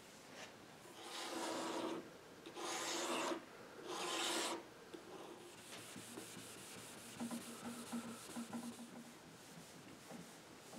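A pad of steel wool scrubbing across the finished wooden tabletop, rubbing the finish out to an even sheen. Three loud strokes come in the first half, then softer, scattered rubbing follows.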